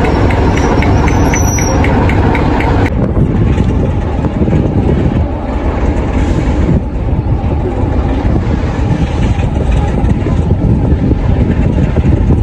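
Class 47 diesel locomotive's Sulzer twelve-cylinder engine running close by as the loco moves slowly past, with a light regular ticking. About three seconds in the sound cuts abruptly to a steadier low rumble as a Class 47-hauled train approaches the platform.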